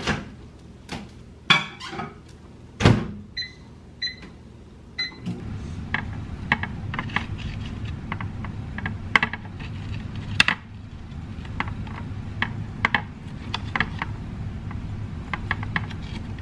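Over-the-range microwave: door clicks and a thump, then three short keypad beeps, then the oven runs with a steady low hum. Over the hum, a knife clicks and taps against a plastic tray while slicing a hot dog.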